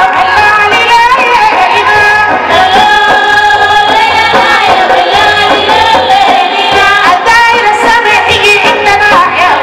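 Sudanese women's song: a woman sings lead with a chorus of women's voices, over a hand drum beaten in the singer's lap and handclaps.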